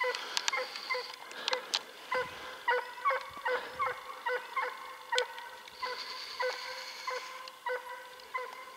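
Russian hound baying in the distance, a long run of short, high yelps at about three a second: the hound giving tongue as it runs a hare's trail.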